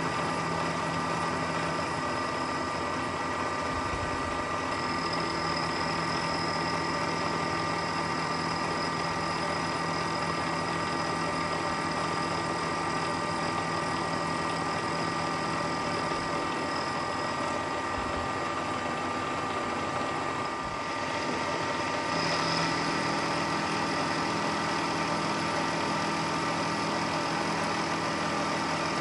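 Milling machine running steadily while milling an aluminum bar down to size, a constant motor and spindle hum with a whine over cutting noise. The sound dips briefly about 21 seconds in and then goes on with a slightly changed tone.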